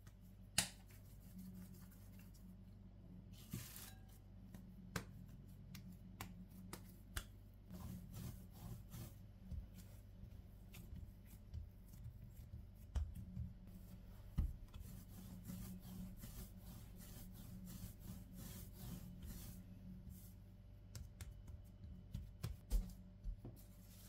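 Hands handling cookie dough on crinkling plastic wrap, with scattered soft taps and rustles. A low steady hum runs underneath.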